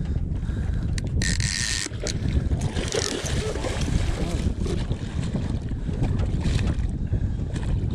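Wind buffeting the microphone on a boat, with water splashing at the side of the hull as a hooked Spanish mackerel is brought alongside; the loudest splash comes about a second in.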